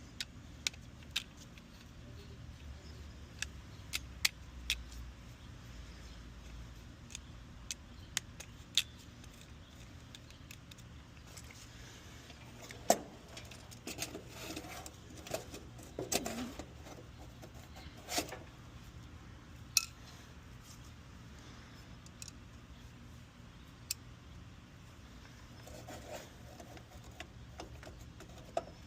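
Scattered sharp clicks and light metallic clinks of tools and wires being handled while an air-conditioner condenser's contactor is swapped and rewired, with a few louder knocks in the middle. A faint low hum runs underneath.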